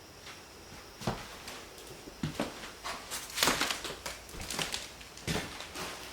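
Slow, irregular footsteps crunching and scuffing over debris on a littered floor, about one step a second, with the loudest, longest crunch about halfway through.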